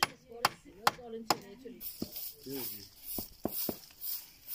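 A hammer drives nails into a wooden frame with four quick strikes, about 0.4 s apart. From about two seconds in, a straw broom sweeps a concrete yard in rhythmic swishes, about two strokes a second.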